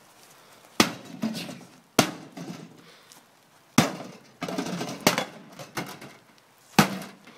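An axe striking a microwave oven, five heavy blows at irregular intervals of one to two seconds. Each blow is followed by a short rattle of loose and broken pieces.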